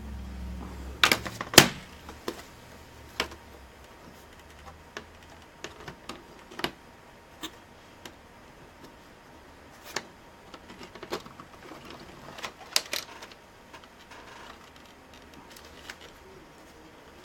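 Scattered clicks and taps of plastic laptop case parts and a screwdriver being handled while the laptop is put back together, with two sharper knocks about a second in.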